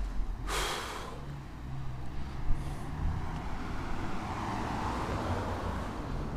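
A car passing on the road: its tyre and engine noise swells and fades about four to six seconds in, over a low steady rumble. A brief hiss sounds near the start.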